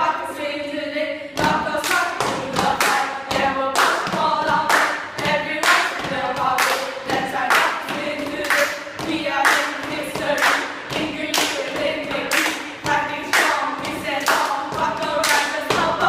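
A small group of girls chanting a cheer in unison, with hand claps keeping a steady beat of about two a second from about a second and a half in.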